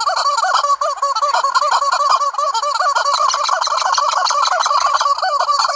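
A flock of turkeys gobbling, many rapid, wavering calls overlapping in a continuous chorus.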